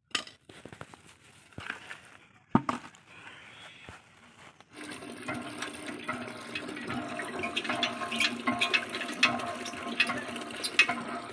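Sharp metallic clinks and knocks of spanners on the hand pump's iron head. From about five seconds in, water pours steadily from the pump's spout into a plastic bucket, with clinks still going on: the repaired pump is delivering water.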